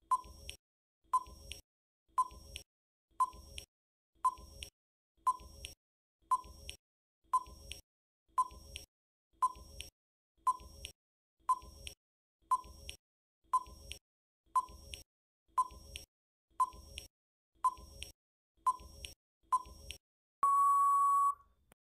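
Countdown timer sound effect: a short electronic tick about once a second, around twenty in all, then a steady beep lasting about a second near the end as the time runs out.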